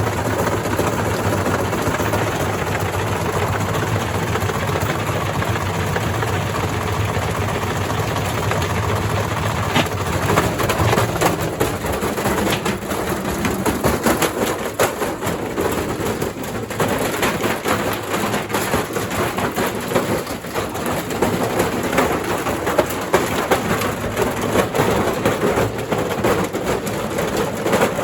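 Indesit IWDC6105 washing machine running with bricks loose in its drum: a steady loud rumble, then from about ten seconds in a dense run of bangs and rattles as the bricks batter the drum.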